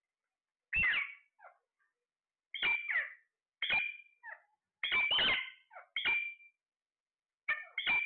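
Alexandrine parakeets calling: a series of about six short squawks, roughly a second apart, the last two coming close together near the end.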